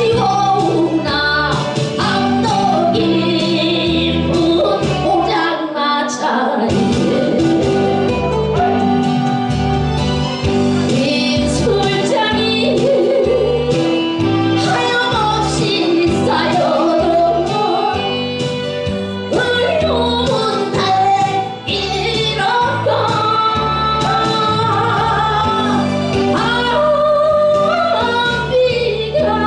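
A woman singing a Korean song live into a handheld microphone, her voice carried over instrumental accompaniment with a steady bass beat.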